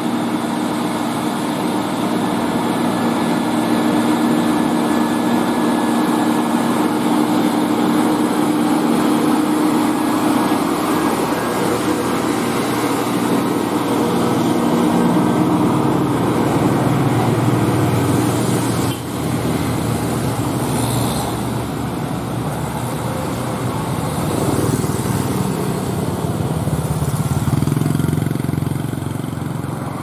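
Container truck's diesel engine pulling steadily up a climb and passing close by, its note dropping lower as it goes past. After a sudden cut about two-thirds of the way in, mixed road traffic with motorcycles.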